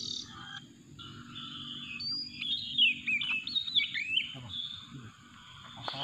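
Oriental magpie-robin (kacer) singing: a quick run of varied whistles and chirps that slide up and down, busiest in the middle few seconds.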